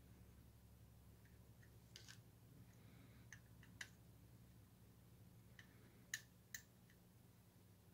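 Near silence: a low steady hum with a handful of faint small clicks, the two sharpest a little past halfway, as a quartz crystal's leads are pressed into a circuit board and the soldering iron tip works at the board to melt leftover solder from the hole.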